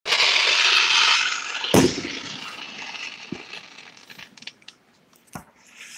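Fireworks going off: a loud, dense hiss from an aerial burst fades away over a few seconds, with one sharp bang just under two seconds in and a couple of faint pops later.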